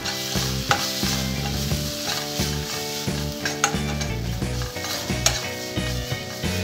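A steel spoon stirs and scrapes a frying onion and sauce mixture in a nonstick wok, clicking against the pan several times, while the oil sizzles; background music plays underneath.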